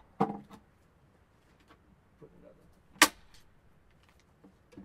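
A hand staple gun fires once with a sharp snap about three seconds in, driving a staple into the birdhouse's wire mesh and wood; faint handling noise comes before it.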